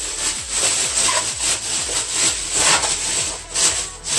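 Thin clear plastic bag crinkling and rustling in irregular bursts as a child's sneaker is pushed into it and the bag is gathered around it by hand.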